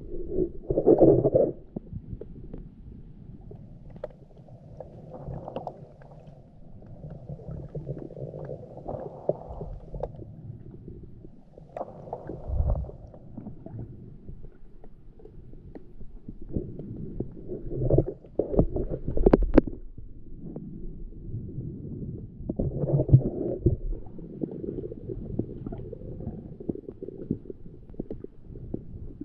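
Muffled underwater noise picked up by a submerged camera: low, uneven rumbling of moving water with bumps and a few sharp clicks. The loudest surges come about a second in and again around two-thirds of the way through.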